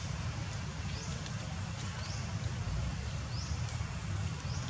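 Outdoor ambience: a steady low rumble, with a short high chirp rising in pitch that repeats about once a second.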